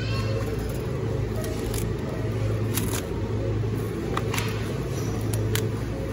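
Steady low hum of a supermarket's refrigerated meat case and store machinery, with a few light clicks scattered through.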